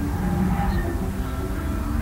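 Ambient soundtrack: several held notes sounding together over a steady low rumble.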